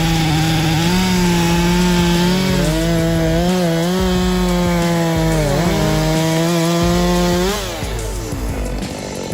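Chainsaw running at high revs, cutting wood, its pitch steady apart from a brief dip a little past halfway, then falling away as the throttle is let off near the end.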